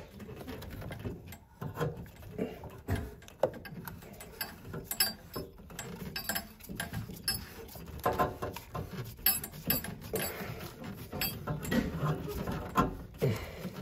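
Irregular clicking and scraping as a gloved hand works a plastic slip-joint fitting onto the brass tee of a tub drain assembly, the parts knocking and rubbing against each other and the surrounding wood.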